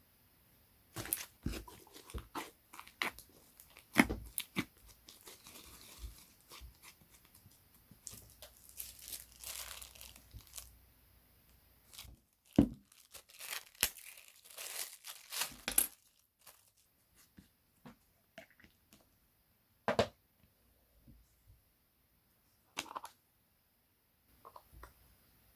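Slime being handled, stretched and squeezed with the hands, giving a run of crackling pops and soft tearing sounds. The pops come thick and fast for the first two-thirds, then thin out to a few single pops.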